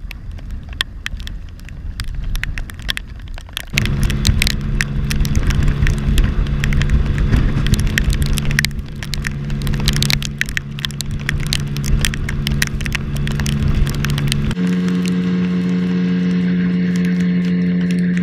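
Outboard motor of a small skiff running under way, with rain and wind spattering the camera and many sharp drop clicks. The engine comes in suddenly a few seconds in, and its tone shifts abruptly to a steadier, slightly higher note about fifteen seconds in.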